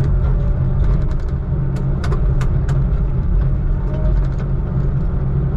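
Diesel engine of heavy logging equipment running steadily, heard from inside the cab as a low drone, with scattered clicks and knocks over it.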